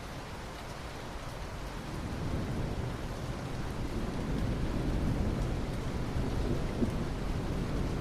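Steady rain with thunder rumbling in, the low rumble swelling from about two seconds in and growing louder toward the end.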